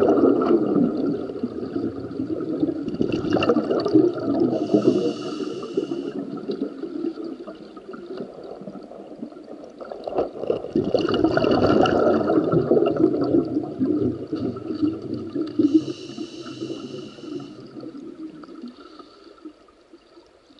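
Muffled water noise through an underwater camera's housing: a rushing, gurgling wash that surges and fades in slow swells. Two short spells of high buzzing come about a quarter and three quarters of the way through.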